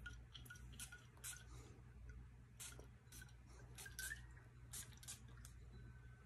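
Several short, faint sprays from a Creed Aventus perfume atomizer, each a brief hiss, spaced irregularly over a few seconds, over a low steady hum.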